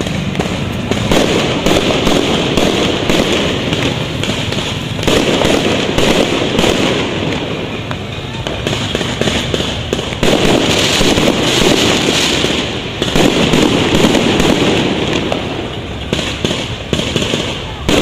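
Aerial fireworks going off in rapid succession: a dense, unbroken run of pops and bangs that swells and eases in waves.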